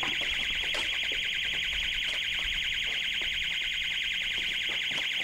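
Electronic alarm sounder going off: a high-pitched, shrill tone with a fast rapid pulse, starting suddenly and holding steady.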